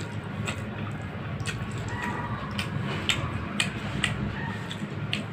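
Wet chewing and lip-smacking clicks of someone eating rice and curry, with the squish of food being mixed by hand, over a steady low hum. The clicks come irregularly, several a second.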